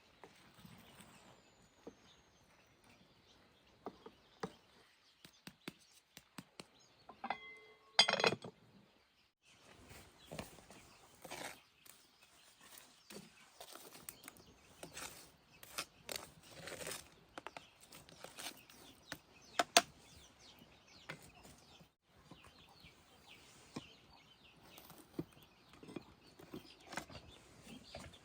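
Chickens clucking now and then over irregular clicks and rustling, with one short, loud pitched call about eight seconds in.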